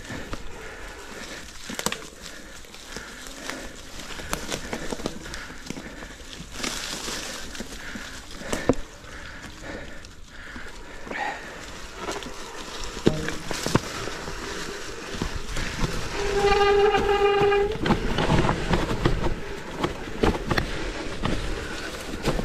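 Mountain bike riding over rough trail: a steady rush of wind and tyre noise with frequent rattles and knocks from the bike. About two-thirds of the way through, a steady high-pitched tone sounds for about a second and a half.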